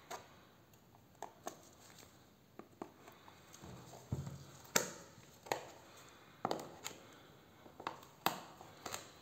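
Serrated folding knife cutting open a small cardboard box, with irregular sharp clicks and short scrapes of the blade on the cardboard. A dull thump a little after four seconds in as the box is handled.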